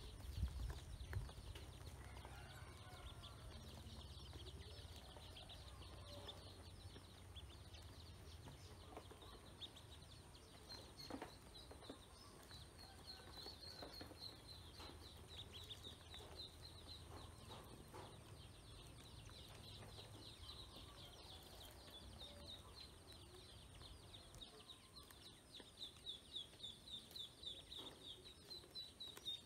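A group of domestic ducklings peeping in a quick, continuous chatter of short high chirps, coming in more regular pulses and a little louder near the end.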